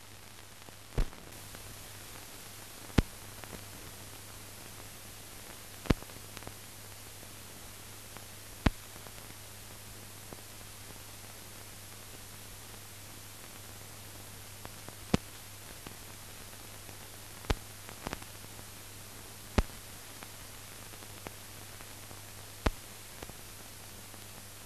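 Blank soundtrack of a silent newsreel film: a steady hiss and low hum, broken by sharp clicks or pops that come irregularly every few seconds.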